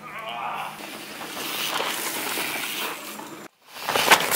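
Mountain bike tyres running through loose, dusty trail dirt with a steady hiss, then, after a sudden brief dropout, a loud close pass with sharp crunching hits of tyres in the dirt near the end.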